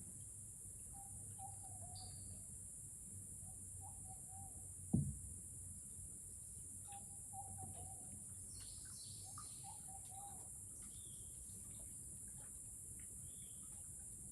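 Rainforest ambience: a steady high insect drone, a bird repeating a short wavering call several times, and scattered higher chirps. A single sharp low knock about five seconds in is the loudest sound.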